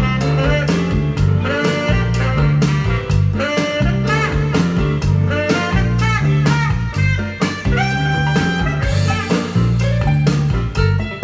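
Bluesy swing-jazz music with guitar, bass and drums, played back through Paradigm Studio 100 v1 loudspeakers.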